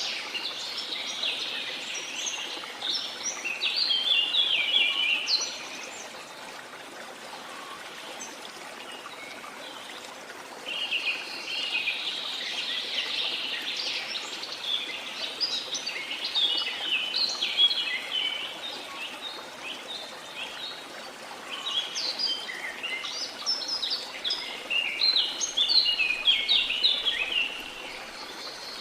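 Birds chirping and trilling in busy bouts over the steady rush of a waterfall. The birdsong pauses briefly about six seconds in and again around twenty seconds in, leaving the water alone.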